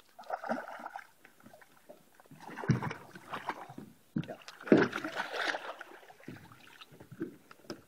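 Hooked walleye splashing and thrashing at the surface beside a small boat as it is brought in and lifted aboard, in uneven bursts of water noise. A sharp knock almost five seconds in is the loudest sound.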